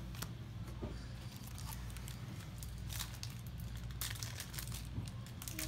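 Crinkling and tearing of a foil Yu-Gi-Oh booster pack wrapper being opened, with short rustles and clicks of cards being handled, busiest about three to four seconds in.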